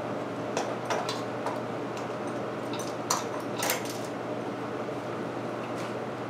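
Loose steel saw chain clinking as it is worked onto the bar and around the clutch drum sprocket of a chainsaw: a handful of light metallic clicks and rattles, the loudest two a little past the middle, over a steady low hum.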